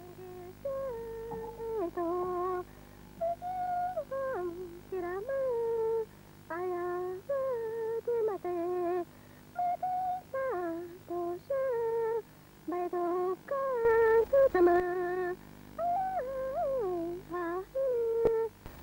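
A woman singing a slow solo chant without accompaniment: short phrases of held notes, each stepping or sliding down at its end, with brief pauses between phrases.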